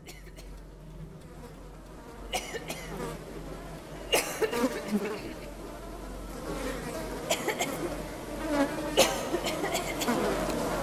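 Buzzing like a swarm of flies, growing louder toward the end, broken by several sharp crackles.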